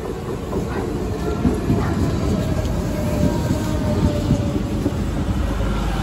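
Passenger train running on the rails, its low rumble growing louder, with a faint whine falling slightly in pitch.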